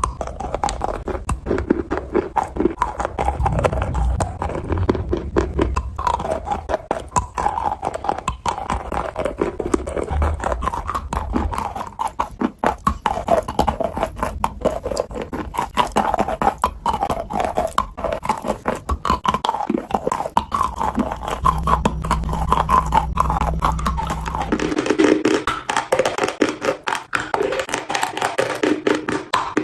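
Close-miked wet chalk being bitten and crunched, a dense run of irregular wet crunches and chewing sounds. About 25 s in the sound changes to a drier-sounding crunch without the low hum.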